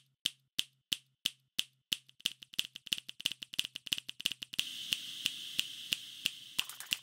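Sharp snapping clicks, about three a second at first, then quickening into a fast patter about two seconds in, over a faint low hum.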